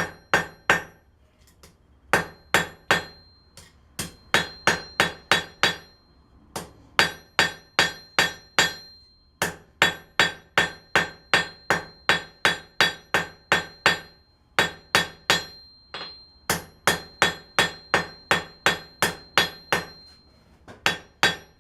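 Blacksmith's hammer striking 1/4-inch square steel bar on an anvil, drawing out a flat taper. The blows come in runs of several at about four or five a second, broken by short pauses, each with a ringing note.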